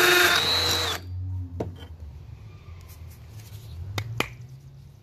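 Milwaukee M12 Fuel 2504-20 brushless hammer drill boring into a concrete block, its motor whine sagging and spinning down to a stop about a second in as the trigger is released. A few light knocks follow, the sharpest two close together near the end, as the block is handled.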